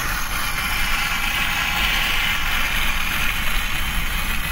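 Steady rumble and hiss of movement along an asphalt road: wheels rolling on the tarmac, with wind.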